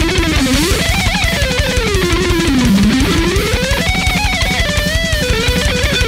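Stratocaster-style electric guitar playing a lead line through an amplifier: long swooping slides down and back up in pitch, then held, vibrato notes near the end, over a steady low rhythmic pulse.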